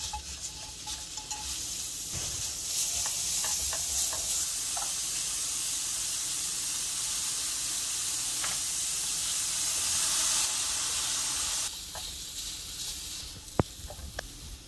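Sliced vegetables sizzling steadily in hot oil in a nonstick frying pan as they are stir-fried with a spatula, with a few light clicks. The sizzle stops abruptly about twelve seconds in, followed by a single sharp knock near the end.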